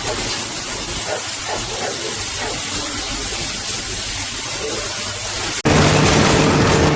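Steady hissing noise that cuts off abruptly about five and a half seconds in, replaced by a louder rushing noise with a steady low hum.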